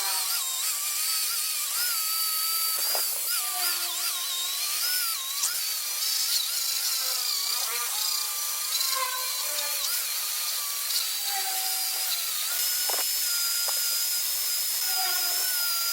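A power tool's motor running with a whine that wavers in pitch as it is loaded and eased, with a couple of short knocks, about three seconds in and again near thirteen seconds.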